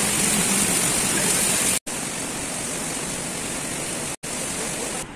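Heavy rain pouring down in a steady, dense hiss, broken twice by short silent cuts.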